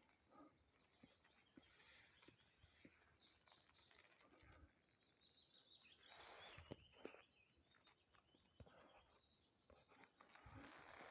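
Faint outdoor quiet with a small bird singing a high, fast trill for about two seconds, and brief rustling a little past the middle.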